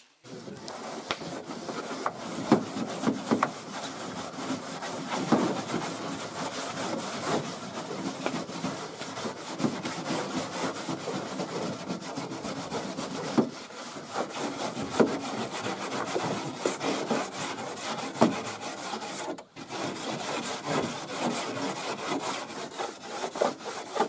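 Steady abrasive scraping and rubbing on a boat's hull, going over the sides before painting, with a few sharper knocks and a short pause about 19 seconds in.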